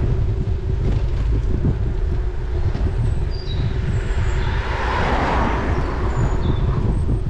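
Wind rumble on the microphone and bicycle tyre noise on a wet road. A car passing the other way adds a hiss of tyres on wet tarmac that swells and fades around the middle.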